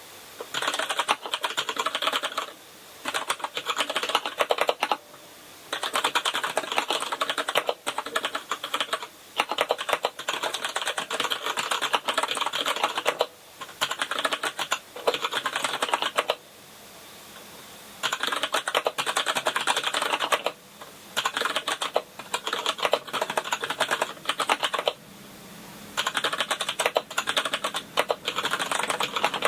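Fast typing on a KINESIS Advantage contoured keyboard with brown mechanical key switches: dense runs of keystrokes broken by short pauses about every two to four seconds.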